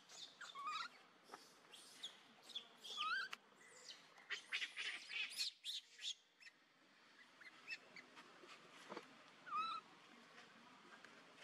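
Scattered short, high-pitched animal calls and chirps, a few of them sliding up or down in pitch, with light clicks over a faint outdoor background.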